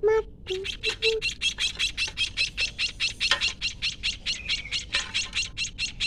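White-headed munia nestling, about ten days old, giving rapid begging calls while being hand-fed, an even run of short high cheeps about six a second. The chick is hungry.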